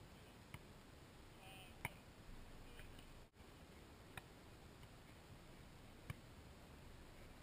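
Volleyball being struck by hand in a beach volleyball rally: four short sharp smacks a second or two apart, over a faint steady outdoor hiss.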